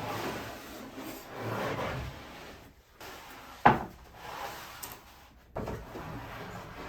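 Wooden boards being handled: a couple of seconds of wood rubbing and sliding, then a sharp wooden knock, the loudest sound, and a weaker knock about two seconds later.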